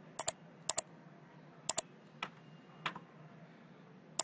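Sharp clicks of a computer keyboard and mouse while text is edited: three quick pairs of clicks in the first two seconds, then two single clicks, then a pause.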